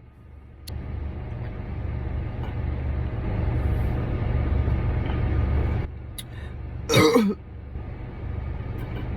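A single short burp falling in pitch about seven seconds in, over a steady low rumble.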